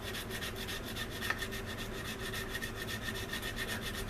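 Sanding stick rubbing on the plastic of a model aircraft wing and nacelle, in quick back-and-forth strokes, several a second.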